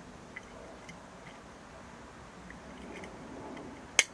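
A few faint handling ticks, then a single sharp click near the end as the glass lid of a clip-top jar is shut with its wire clasp.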